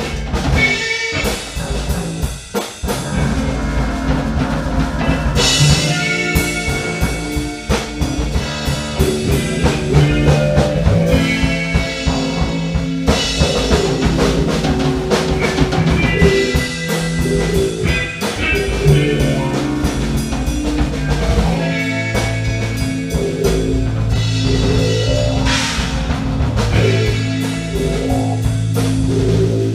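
Live band playing a freeform jam, driven by a drum kit with bass and other instruments; in the second half the bass settles into a repeating low figure.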